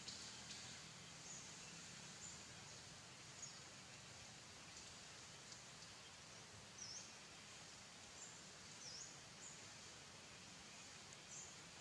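Faint outdoor background hiss with scattered short, high-pitched bird chirps, several of them quick dip-and-rise notes, over a faint low hum.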